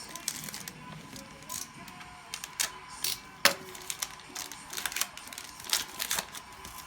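Foil trading-card pack wrappers crinkling and tearing as basketball card packs are ripped open and the cards handled, a string of short sharp crackles with the sharpest about three and a half seconds in.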